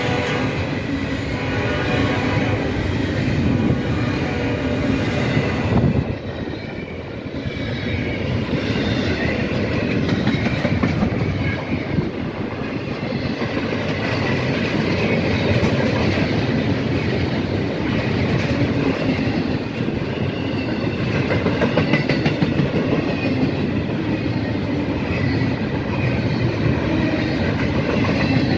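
Freight train rolling past, its steel wheels clacking steadily over the rail joints, with the tail of a horn blast fading in the first couple of seconds.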